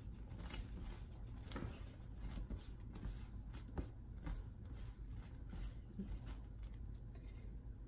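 Light rustling and scattered soft clicks of cut flour-tortilla pieces being tossed and mixed by hand with salt on a countertop.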